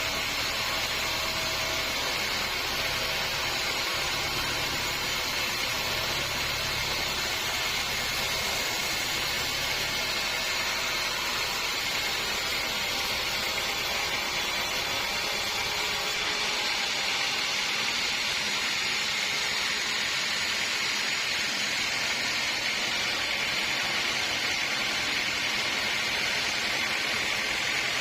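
Sawmill running, its blade cutting through a log with a steady hissing whir. A low hum underneath drops away a little past halfway while the higher whir carries on.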